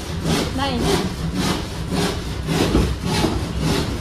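Hand saw cutting a plywood sheet in quick, regular back-and-forth strokes, about three a second.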